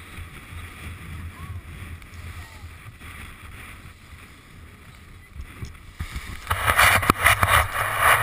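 Outboard engine of a rigid inflatable boat running low and steady. About six and a half seconds in, it is drowned by a loud, rough rush of wind and splashing water as the boat gets under way.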